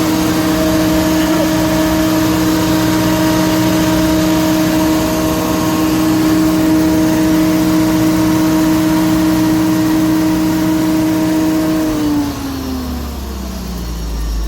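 Generac SG230 generator's 14.2 L natural-gas engine running at steady speed, then shut off about twelve seconds in, its pitch falling as it spins down.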